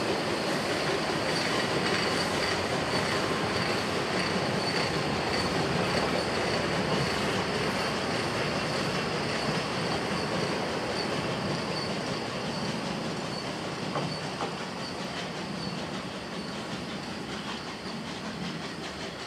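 Narrow-gauge railway coaches and vans rolling slowly past on the rails, wheels clattering under a thin steady high tone. The sound fades over the second half as the train pulls away.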